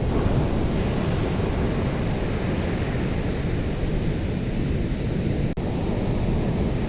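Ocean surf: a steady rushing wash of waves with a heavy low rumble. There is a split-second gap in the sound about five and a half seconds in.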